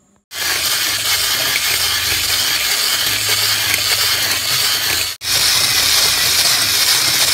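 Wire balloon whisk beating instant coffee, sugar and hot water in a ceramic bowl for dalgona coffee: fast, continuous clinking and scraping of the wires against the bowl. It stops for an instant about five seconds in, then goes on.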